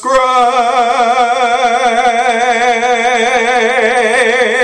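A man singing one long held note with a steady, wavering vibrato.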